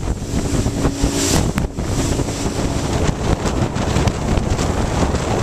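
Fishing boat under way, its engine running with a steady hum beneath heavy wind noise on the microphone.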